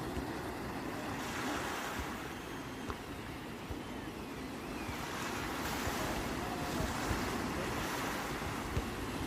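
Sea waves washing ashore, a steady surf, with wind buffeting the microphone.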